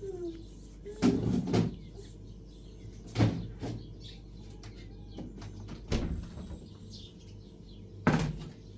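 A series of irregular knocks and thumps, about half a dozen spread over several seconds, with faint bird chirps in between.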